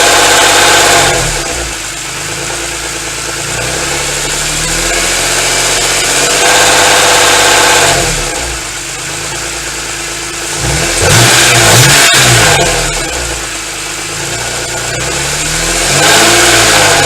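BMW E46 M3's S54 straight-six engine being blipped up in revs several times and falling back toward idle between blips. It is being run to show a rattle that comes only at around 2000 rpm, which the owner wonders may be caused by low engine oil.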